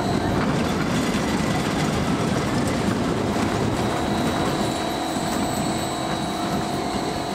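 Small kiddie roller coaster train running along its steel track, a steady noise of wheels on rail.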